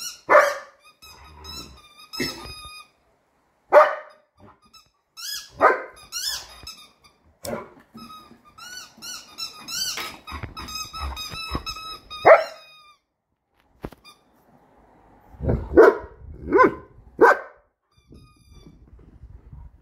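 A dog barking in short bursts, mixed with repeated high-pitched squeaks from a squeaky toy chicken that he is playing with. The squeaking is mostly in the first two thirds, and three barks come close together near the end.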